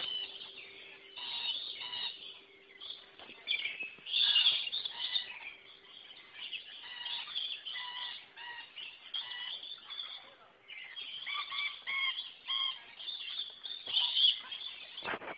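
Rainbow lorikeets chattering and screeching: a steady stream of short, shrill, overlapping calls, loudest about four seconds in and again near the end.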